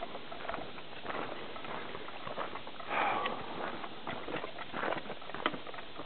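Footsteps crunching and scuffing on a dry, rocky dirt trail in an uneven patter, with a brief louder rustle about halfway through.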